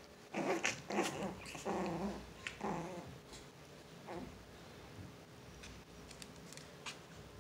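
Small dogs play-fighting, growling in about four short bursts over the first three seconds, then only faint scuffling.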